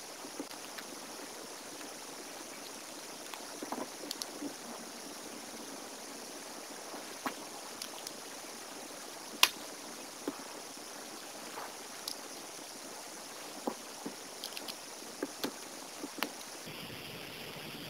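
Scattered small clicks and taps of plastic and metal Beyblade parts being handled and fitted together, the loudest a sharp click about halfway through, over a steady background hiss.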